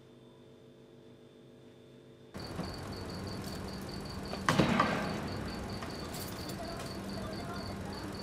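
A cluster of loud knocks and rustling from a man climbing out of a car through its open door. Behind it is night ambience: a steady low hum and a high chirping pulse about three times a second, typical of a cricket. Before that, for about two seconds, there is only faint room hum.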